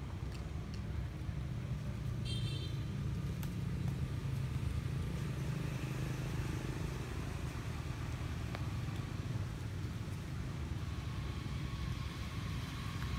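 Steady low rumble of a road vehicle's engine running, with a brief high chirp about two seconds in.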